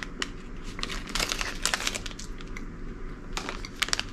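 Plastic snack-bar wrapper crinkling in short crackly bursts, about a second in and again a little after three seconds.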